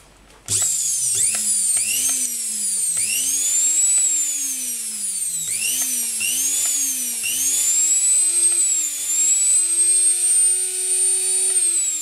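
Bare brushed electric motor from an EUROE string trimmer, bench-tested after its carbon brushes were refitted: a high whine that spins up and coasts down in repeated short bursts, then runs steadily for about three seconds before cutting off near the end. It spins freely and well.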